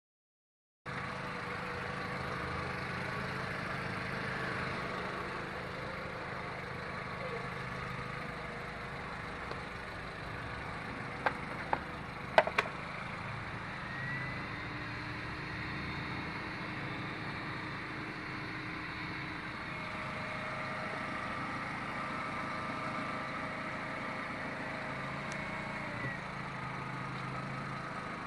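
VW 2.0L AZG inline-four engine idling steadily after its repair. A few sharp clicks sound about halfway through.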